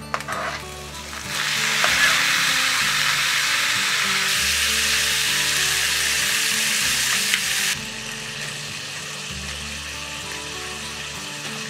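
Sliced pork belly sizzling as it fries in a frying pan. The sizzle grows loud about a second in and falls to a softer sizzle about two-thirds of the way through.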